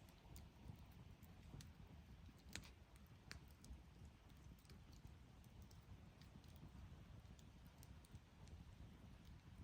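Campfire burning quietly: a wood fire crackling with scattered small, sharp pops over a steady low rumble, the clearest pop a little over two seconds in.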